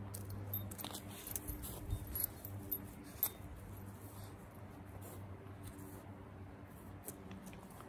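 Light metallic jingling and clicks, scattered over the first three seconds or so, from a puppy's harness hardware as it trots on grass. A steady low hum runs underneath.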